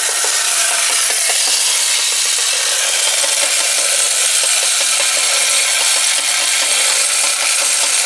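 Marx tin wind-up WWI toy tank running, its clockwork motor turning the steel spark wheel against the flint in a steady, continuous scraping rasp.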